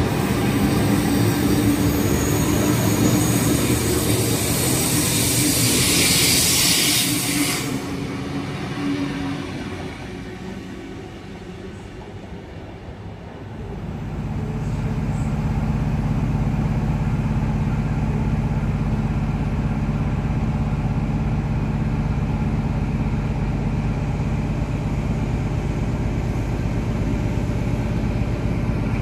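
Comeng V set double-deck electric train: loud running noise with a burst of hiss about six seconds in, then quieter for a few seconds. From about halfway through, a steady low hum sets in and holds.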